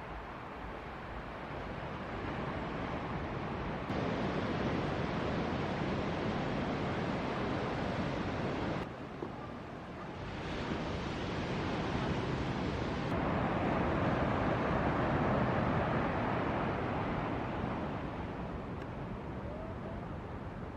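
Ocean surf breaking and rushing, a steady roar of water noise that swells and eases, with wind buffeting the microphone. The noise changes abruptly a few times.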